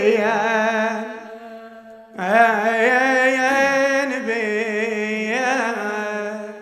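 A man singing unaccompanied in long, drawn-out notes with a heavy vibrato. One phrase trails off about a second in, and a new held phrase begins about two seconds in and fades out near the end.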